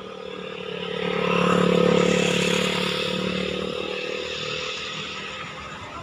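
A motor vehicle's engine hums steadily as it passes, swelling to its loudest about two seconds in and then slowly fading.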